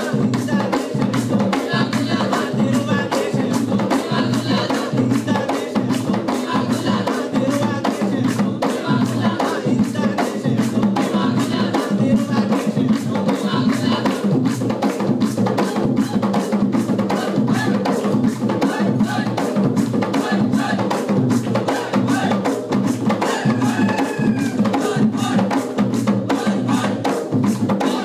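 Bodu beru drum ensemble: several large Maldivian barrel drums struck by hand in a fast, driving, unbroken rhythm.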